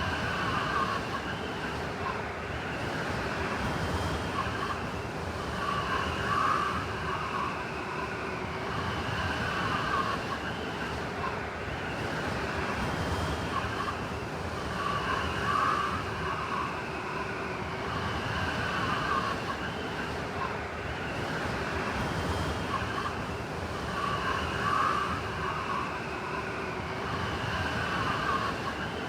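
Blizzard wind: a steady rush of wind noise with a higher, wavering whistle over it that swells briefly every several seconds.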